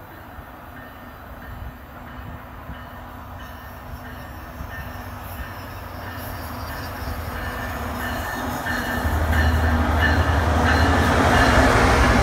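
NJ Transit PL42AC diesel locomotive approaching and passing, pulling a Comet coach set. Its drone grows steadily louder, the low engine note strengthens about three-quarters of the way through, and the coaches roll by near the end.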